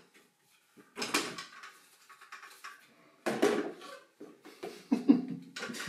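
Plastic Ninja blender jug lifted off its base and tipped over a plastic mixing bowl: irregular knocks and clatters of plastic on plastic, with the rustle of blended bread crumbs pouring out. There are three main bursts: about a second in, a little after three seconds, and near the end.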